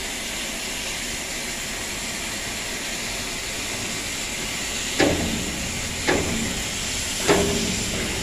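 A gas cutting torch hisses steadily. From about five seconds in come three sharp knocks roughly a second apart, each ringing briefly.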